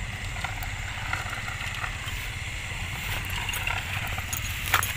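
Footsteps and rustling through grass with a steady low rumble of camera handling, over a steady high chorus of night insects; a sharp crackle of grass near the end is the loudest sound.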